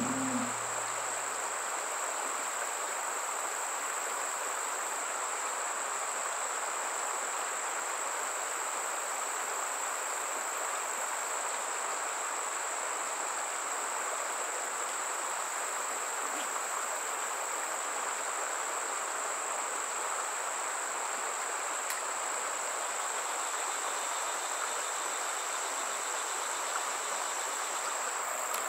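Insect chorus: a continuous, steady high-pitched drone over an even hiss.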